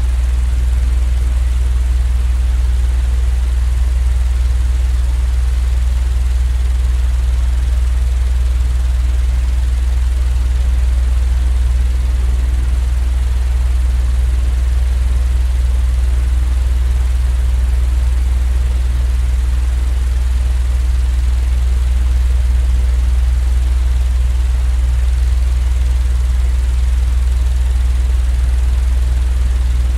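Steady, unchanging deep rumble, nearly all of it in the bass with a faint hiss above: a continuous sleep-aid noise track.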